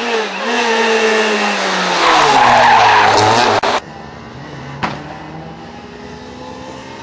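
Rally car at full speed on a gravel stage, its engine running hard with tyres skidding as it slides through a bend. The sound drops away abruptly about four seconds in, and a single sharp crack follows about a second later.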